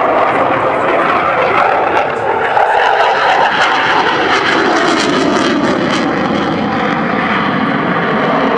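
Saab JAS 39 Gripen fighter in display flight, its single Volvo RM12 turbofan giving a loud, steady rushing jet noise. A whine in it drifts slowly lower in pitch.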